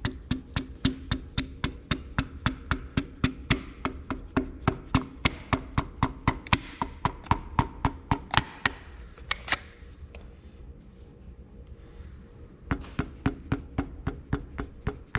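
A small rubber mallet tapping a piston, rings held in a band-type ring compressor, down into a cylinder bore of an Oliver 1855 engine block. Quick light taps, about four a second, stop for about three seconds and then a few more follow as the piston goes into the bore.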